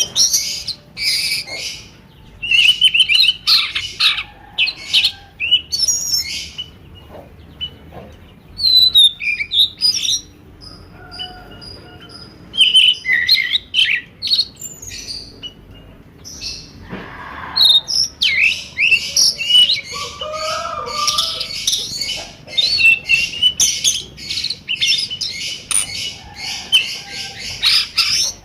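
Small birds chirping and twittering in quick high bursts, several overlapping, busiest in the last third.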